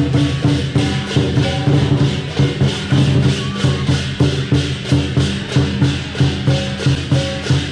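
Chinese lion dance percussion: a large drum, crash cymbals and gong struck together in a fast, steady beat.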